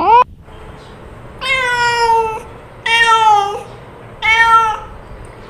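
Cat meowing: a short rising meow at the very start, then three separate meows about a second and a half apart, each a little shorter than the one before.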